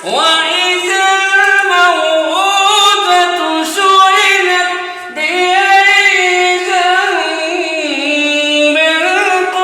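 Solo unaccompanied Quran recitation (tilawa) in a melodic, ornamented chant, with long drawn-out notes and a brief pause for breath about five seconds in.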